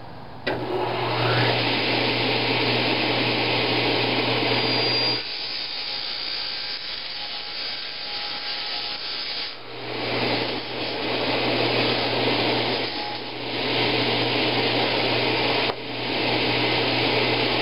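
Table saw with a worn fine-tooth Diablo carbide cabinetry blade cutting 0.020-inch aluminum sheet: a loud, harsh rasping over the steady hum of the saw's motor, starting about half a second in. Midway it eases off for about four seconds, leaving the saw running, then the cut resumes at full loudness.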